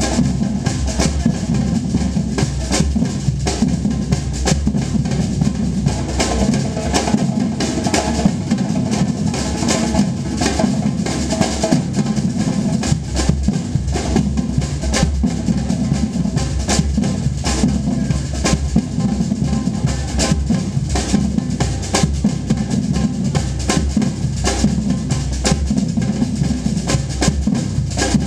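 A drum ensemble playing continuously: heavy bass drums under a dense, fast pattern of snare-like strikes.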